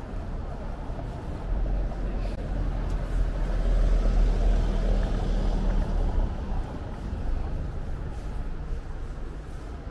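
A motor vehicle's engine running close by in street traffic: a low hum that swells after about a second and a half, is loudest around four seconds in, and eases off after about six seconds.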